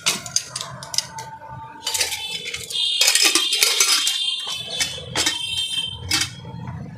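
Metal pressure cooker lids being fitted and closed: a run of clinks and knocks of lid against rim and handle. About three seconds in comes a longer scraping, ringing stretch as the lid is worked into place.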